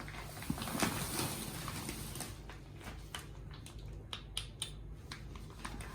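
Plastic food packets rustling and crinkling as they are handled, a run of short crackles and clicks that grows busier in the second half.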